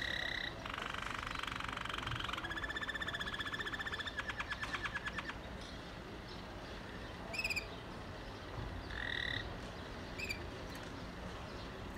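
Waterslager (Malinois) song canary singing: a held note, then a fast trill and a long rolling trill that slows into separate pulses about five seconds in. A few short notes with pauses follow.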